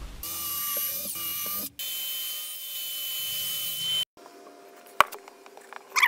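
Sliding mitre saw running and cutting through a piece of wood, with a steady high whine. It stops abruptly about four seconds in, followed by a quieter stretch with a single click.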